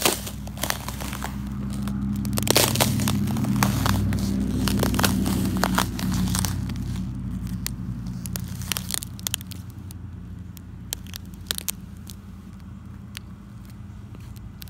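A thin sheet of ice over grass cracking and crunching underfoot as boots step on it: many sharp snaps and crackles, thick in the first half and sparser later. A low rumble runs underneath, louder in the first half.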